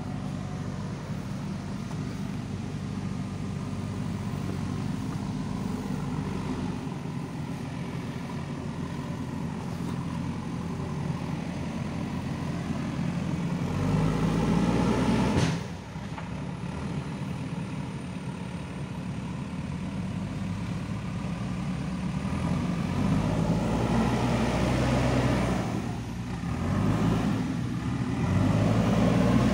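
JCB 3DX backhoe loader's diesel engine working under load as the machine crawls over loose dirt and rock. It swells louder about halfway through, drops off suddenly, then builds again twice near the end.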